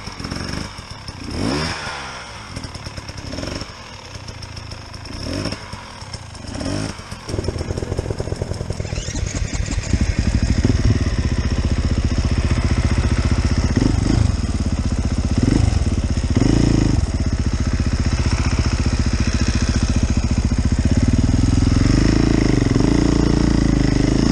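Dirt bike engines: at first a motorcycle revs in repeated bursts, rising and falling every second or two, as it works down a steep gully. From about seven seconds in a much closer dirt bike engine runs loud, with several short throttle blips.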